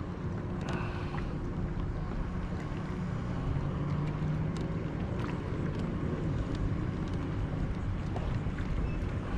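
Low, steady hum of a kayak's built-in electric trolling motor holding the boat in place, with wind on the microphone.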